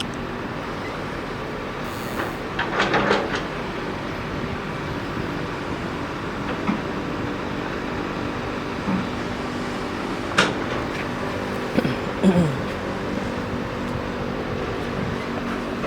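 Heavy excavator's diesel engine running steadily, with a few short knocks and squeals from the working machine, the last a brief falling squeal.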